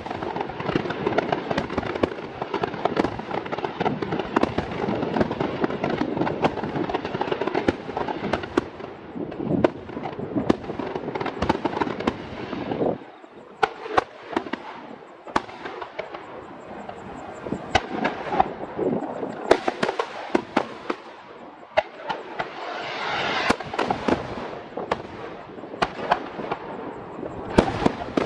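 Aerial fireworks bursting in a dense barrage of bangs and crackling, thinning about halfway through to separate sharp bangs with quieter crackle between them.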